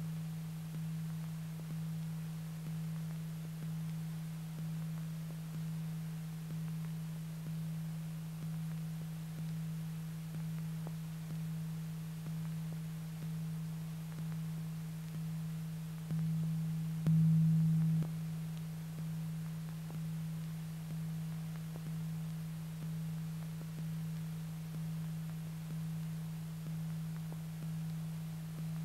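A low, steady humming tone that pulses evenly about once a second, swelling louder for a couple of seconds about halfway through.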